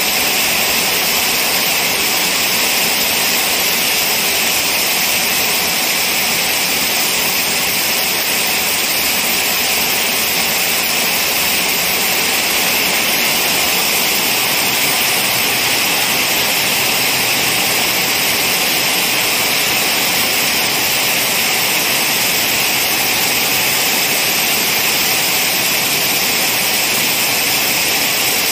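Heavy rain falling steadily, splashing onto puddled ground and plastic planting baskets.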